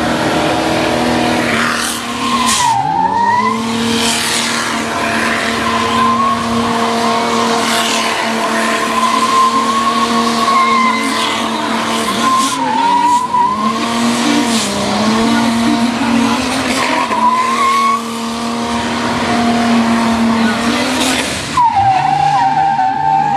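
Turbocharged Ford crossflow inline-six in a T-bucket hot rod, held at high revs through a burnout with the rear tyres spinning and screeching. The revs sag briefly several times and climb back each time.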